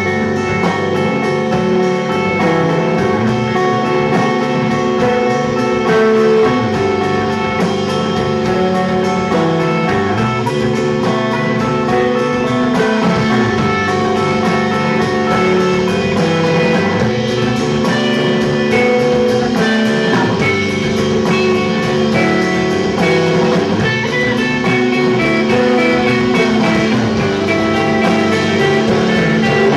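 A rock trio playing live: electric guitar over bass guitar and drum kit, with steady cymbal strikes keeping time.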